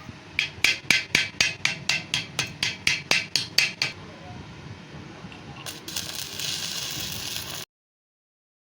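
Metal struck with a hammer in quick, even blows, about four a second for some three and a half seconds. Later a couple of seconds of dense, high crackling sizzle, typical of an arc-welding arc, cuts off suddenly.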